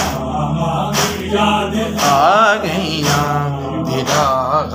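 A noha, a mournful devotional chant, sung by a male voice in long wavering melodic lines over a steady low drone, with a beat about once a second.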